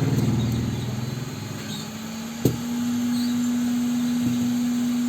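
Hot air rework station humming steadily. A sharp click comes about two and a half seconds in, and after it a steady, slightly higher hum holds.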